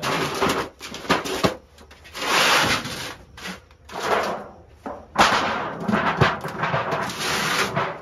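Wooden beehive supers full of honey frames being handled and set down: knocks and scrapes of the boxes among repeated rustling bursts.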